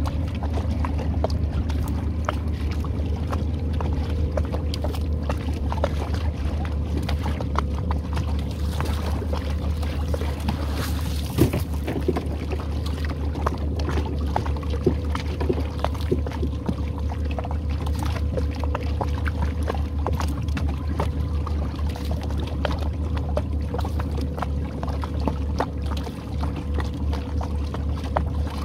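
Small boat's outboard motor running steadily at idle while the boat creeps along a trotline, with scattered light clicks and one sharper knock about eleven seconds in.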